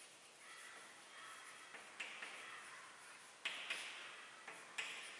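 Chalk writing on a blackboard: faint scratching broken by a few sharp taps of the chalk against the board, the loudest about three and a half seconds in.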